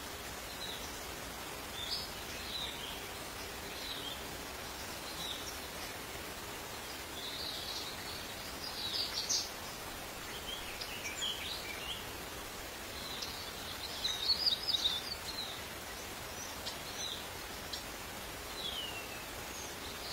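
Outdoor ambience: a steady hiss with scattered short, high chirps and squeaks, gathering into louder clusters about nine seconds in and again around fourteen to fifteen seconds.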